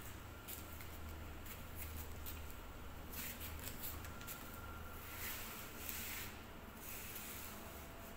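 Soft scattered scuffs and rustles, with short hissy bursts about three seconds in and again between five and seven seconds, over a low steady hum.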